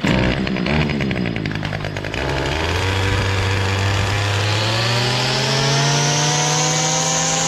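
Small two-stroke gas string trimmer engine running unevenly at first, then revving up about two seconds in and holding a steady high-pitched buzz.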